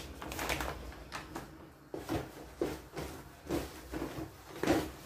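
Mandazi dough being kneaded by hand: a series of irregular soft thumps and slaps as the dough is pressed and turned, the loudest near the end.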